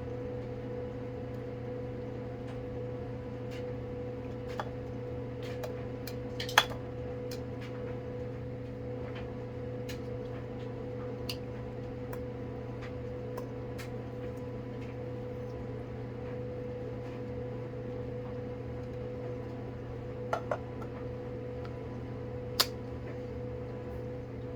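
Occasional sharp clicks and taps of plastic containers being handled, the loudest about a third of the way in and near the end, over a steady low electrical hum.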